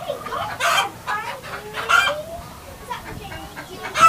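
Chickens clucking and calling in the coop, in several separate calls, the loudest about two-thirds of a second in, at two seconds and near the end.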